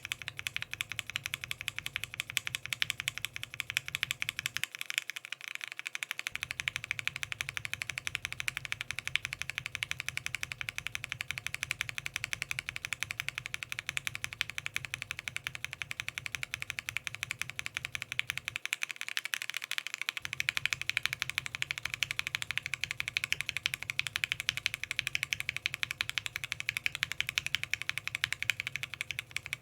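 Fast continuous typing on a foam-filled Bakeneko60 mechanical keyboard with PBT keycaps and Gateron Ink linear switches fitted with swapped stems. Gateron Yellow stems come first, then Cherry MX stems after a short break about five seconds in, then Alpaca stems after another short break about two-thirds of the way through.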